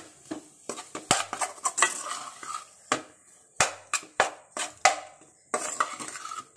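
Metal spatula scraping and clacking against a metal kadhai while stirring mashed boiled-potato filling: a string of irregular sharp knocks with scraping between them.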